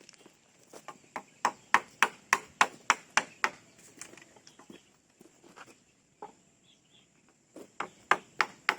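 Hammer blows in carpentry work, struck in a steady rhythm of about three a second, stopping for about four seconds midway and then starting again near the end.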